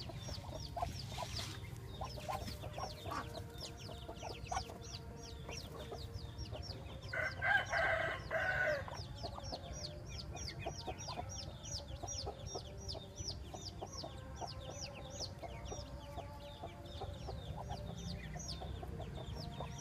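A brood of Muscovy ducklings peeping steadily, a run of short high falling peeps several times a second. About seven seconds in, a louder bird call of about two seconds stands out over them.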